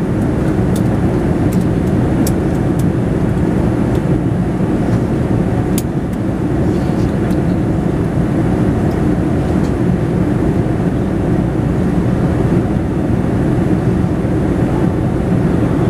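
Steady cabin noise inside a Boeing 787-10 airliner in flight: an even, low rush of airflow and engine noise.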